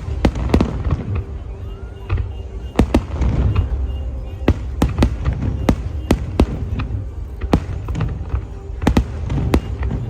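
Aerial fireworks going off in an irregular series of sharp bangs, sometimes two or three close together, over a continuous low rumble.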